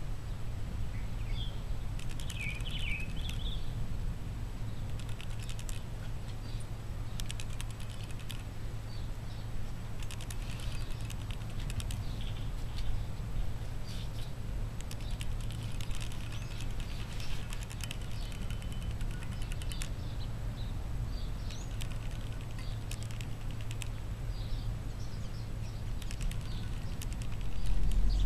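Cat crunching dry kibble from a bowl: clusters of small crisp clicks every couple of seconds, over a steady low hum.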